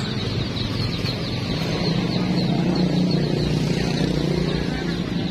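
Engine of a passing motor vehicle running with a steady drone that grows louder around the middle, with rapid high chirping underneath.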